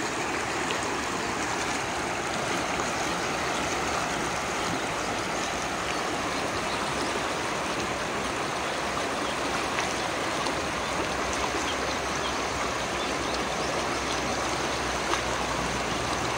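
River water running steadily, an even rushing flow.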